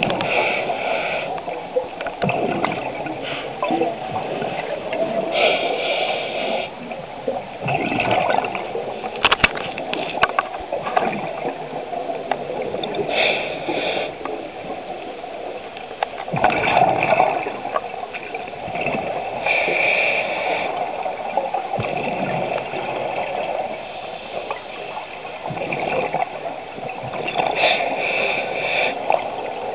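Scuba regulator breathing recorded underwater: a steady bubbling haze that swells every few seconds, with short hissing breaths between the swells.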